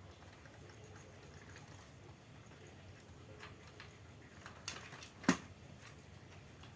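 Faint handling noises of fan wiring and parts, with a few small clicks; the two sharpest come about five seconds in.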